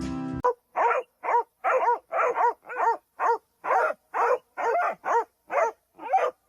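A small dog barking in a fast, even run: a dozen or so short, high-pitched barks, about two a second.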